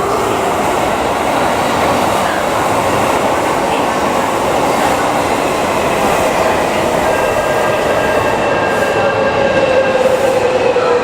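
Odakyu 4000 series electric train running into the platform, a steady rumble of wheels on rail with a whine that falls slowly in pitch over the second half as it brakes.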